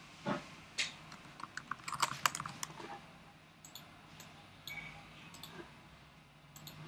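Computer keyboard typing: a short run of keystrokes, densest about two seconds in, followed by a few sparse faint clicks.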